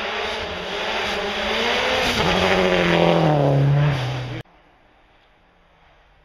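Rally car engine revving hard, its pitch shifting through gears as it gets louder while passing close by. It cuts off abruptly about four seconds in, leaving only faint outdoor background.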